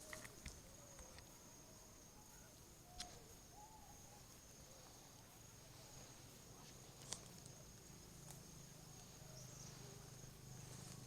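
Near silence outdoors: a faint, steady high-pitched hum with a few faint chirps, and two short sharp clicks, about three and seven seconds in.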